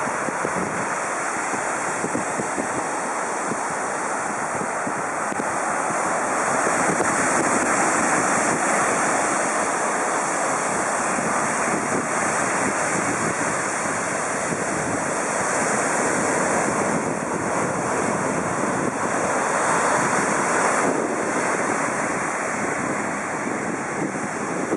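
Surf breaking on a sandy beach: a steady wash of waves rolling in and foaming up the shore, swelling louder a couple of times as bigger waves break.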